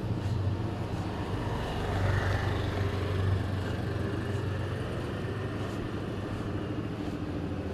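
A motor running steadily with a low hum that swells slightly about two seconds in.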